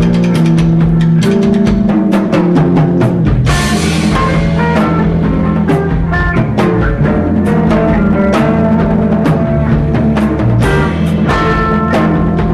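Post-rock band playing live: a drum kit beating busily under sustained bass and melodic notes that shift from chord to chord, with cymbal crashes about three and a half seconds in and again near eleven seconds.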